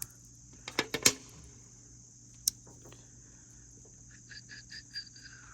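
Sharp metal clicks of small keychain multitools being handled as their file tools are folded out: a cluster of clicks about a second in, a single click midway, then a quick run of light ticks near the end.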